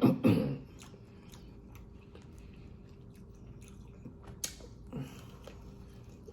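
Close-miked chewing and biting of food, heard as soft wet mouth clicks, with a brief voiced sound at the very start and one sharper click about four seconds in.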